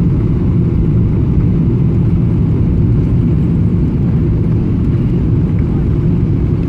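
Jet airliner's engines on landing approach: a steady low rumble.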